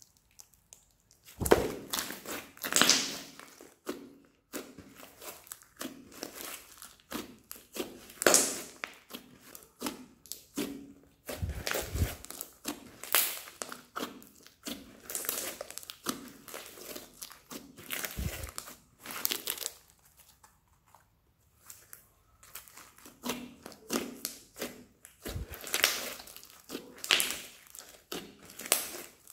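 Thick crunchy slime studded with foam beads being stretched, pressed and poked by hand, giving irregular crackling and crunching with a few much louder crackles. The sounds stop for a couple of seconds about two-thirds of the way through.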